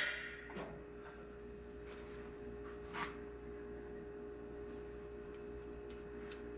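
Quiet garage background: a steady low hum with one faint click about three seconds in.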